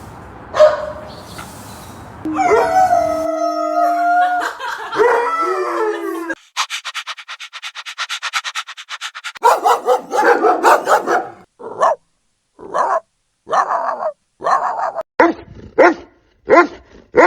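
A dog howling in a long wavering call, then barking again and again in short sharp barks through the second half.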